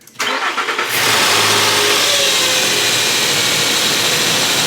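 2009 Nissan Xterra's engine cranked by the starter and catching within the first second, then running steadily with a loud rush of air from the engine bay.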